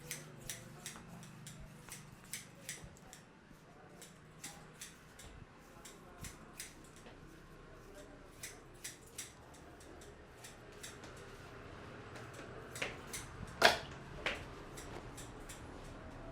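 Hair cracking during a head massage: irregular sharp crackling snaps, about two a second, with a few louder cracks near the end, one much louder than the rest.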